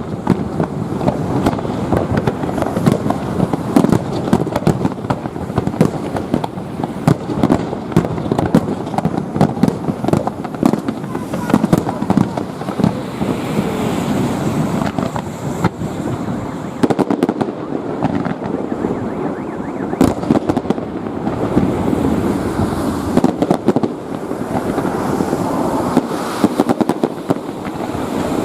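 Fireworks display: a dense, continuous barrage of bangs and crackles with hardly a pause.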